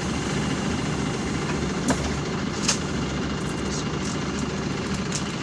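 Cabin noise inside a PAZ-320405-04 Vector Next bus: a steady low drone of its engine and running gear, with two short rattles or clicks about two and two and a half seconds in.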